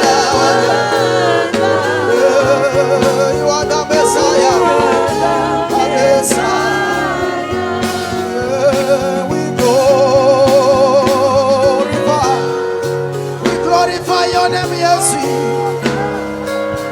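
Live gospel worship music: singing with a wide vibrato over sustained chords and a steady bass line.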